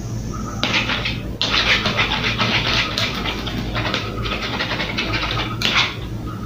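Metal spoon stirring sticky clear glue and borax-water activator in a plastic bowl, in spells of wet scraping a second or two long as the mixture starts to turn into slime. A steady low hum runs underneath.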